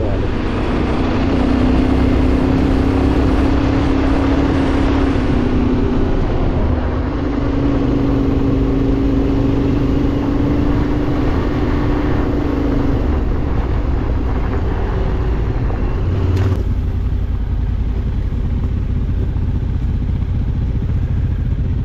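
Motorcycle engine running under way, its pitch stepping up and down with the throttle in the first half, over steady rushing noise. A single sharp click sounds about two-thirds of the way through.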